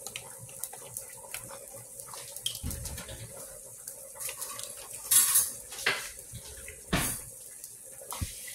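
Kitchen handling sounds: scattered clinks and knocks of utensils and containers being picked up and set down, with a brief rustle about five seconds in and a sharper knock about seven seconds in.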